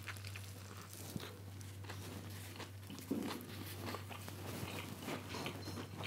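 Faint chewing of a mouthful of breaded cod fish burger in a soft bun with lettuce, with small wet clicks and mouth noises.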